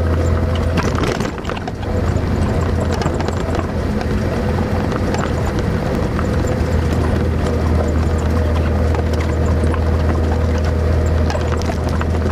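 Vehicle driving along a rough dirt track: a steady low engine drone, with many small rattles and knocks from the bumpy ride.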